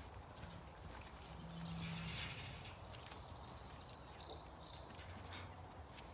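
Faint footfalls of a small flock of Zwartbles sheep and a person walking over soft orchard ground, scattered light steps, with a brief low sound about a second in.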